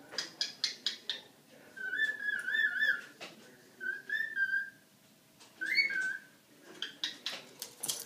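Cockatiel whistling a warbling tune in three short phrases, with runs of quick sharp chirps at the start and near the end.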